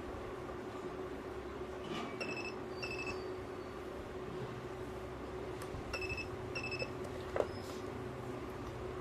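Battery spot welder beeping as it welds onto the positive terminal of an 18650 cell: two short double beeps about four seconds apart, then a sharp click, over a steady electrical hum.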